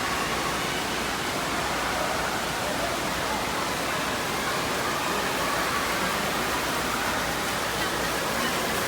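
Steady wash of indoor water-park noise: running and splashing water with faint distant voices.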